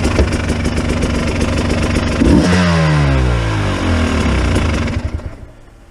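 KTM 300 XC-W TPI two-stroke dirt bike engine running, given a brief rev a little over two seconds in, then shut off: its pitch falls steadily as it winds down, fading out near the end.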